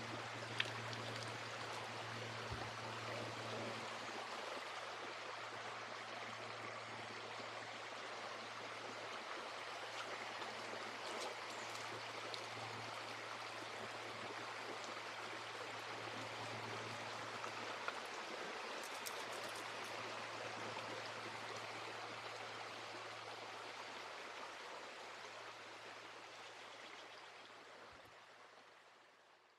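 Steady rush of flowing stream water, fading out over the last few seconds.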